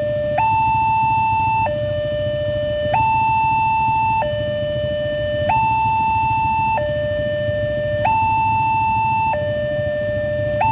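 Railroad level-crossing warning alarm sounding a steady electronic two-tone hi-lo signal, a higher and a lower tone each held about a second and a quarter, warning that a train is coming and the barrier is down. A low rumble of waiting traffic runs underneath.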